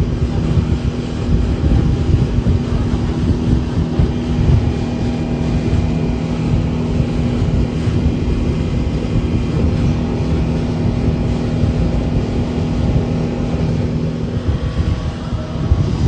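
Motorboat engine droning steadily at speed, with strong wind buffeting the microphone and the rush of the wake and spray along the hull. The engine's steady hum drops away near the end.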